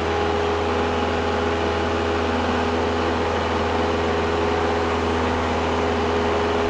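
Cessna 172's engine and propeller droning steadily at climb power, heard inside the cabin.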